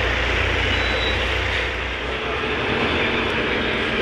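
Steady engine and road noise heard inside a moving city bus. The deep engine hum eases off about halfway through.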